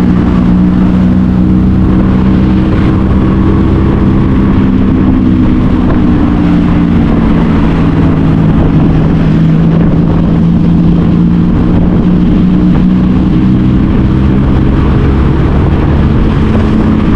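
Small motor scooter engine running at a steady riding speed, its hum holding nearly the same pitch, over loud low road and wind noise.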